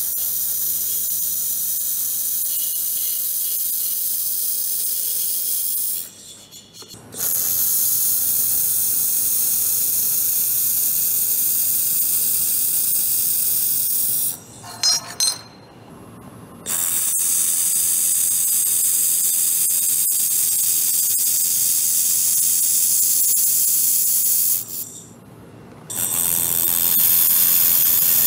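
A 1.5 kW handheld laser welder welding metal joints gives a steady high hiss. The hiss cuts off briefly three times between weld runs.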